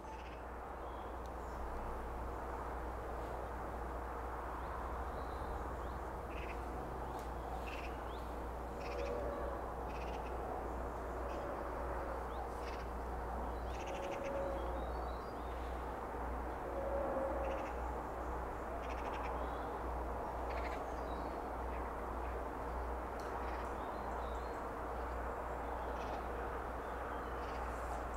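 Outdoor ambience of birds calling over a steady low rumble, with short high calls scattered throughout and a few short, lower calls around the middle.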